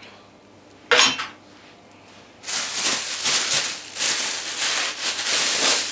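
Thin plastic bag crinkling and rustling continuously as it is handled and gathered up by hand, starting about two and a half seconds in. A single short knock comes about a second in.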